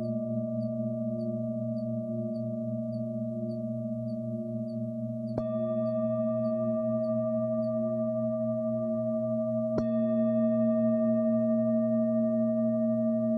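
Tibetan singing bowls ringing in long sustained tones that pulse slowly. A bowl is struck about five seconds in and again near ten seconds, each strike adding a fresh ringing tone over the others.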